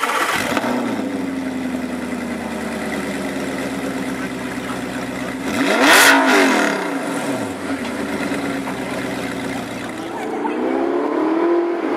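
A sports car's engine running just after a start-up, with one loud rev that climbs and falls back about halfway through and a smaller rise in revs near the end.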